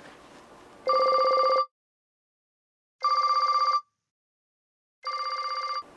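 Telephone ring for an outgoing call: three short trilling rings, about two seconds apart, with dead silence between them.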